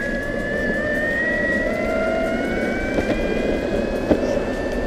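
Electric skateboard accelerating: the electric drive motor's whine rises steadily in pitch as speed builds, over the rumble of the wheels on pavement. A couple of small knocks come near the end.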